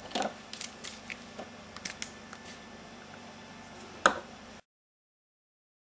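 Handling noise of lab work: scattered light clicks and taps, with one sharp, louder knock about four seconds in, over a faint steady hum. The sound cuts off suddenly about a second before the end.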